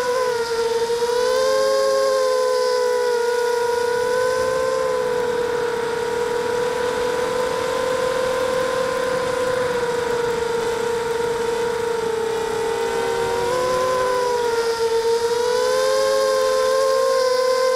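Brushless motors and propellers of a 260-size FPV racing quadcopter whining steadily, heard from its onboard camera. Several close pitches drift apart and back together as the throttle changes, around two seconds in and again after about thirteen seconds.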